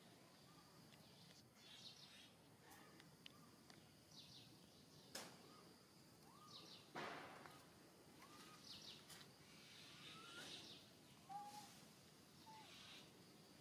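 Near silence: faint outdoor ambience with soft, short chirps about once a second. There is a sharp click about five seconds in and a brief rustle or scuff about seven seconds in.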